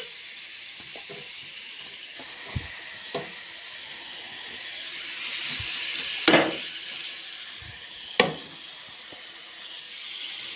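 Thin potato slices sizzling in hot oil in a wok, a steady frying hiss. A few sharp clinks and knocks of dishware or utensils against the pan, the loudest about six and eight seconds in.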